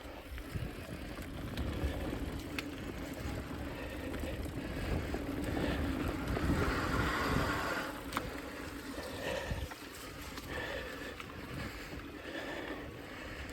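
Mountain bike riding over a dirt trail: a steady low rumble of wind on the microphone and tyre noise, with a few sharp clicks and knocks from the bike over bumps.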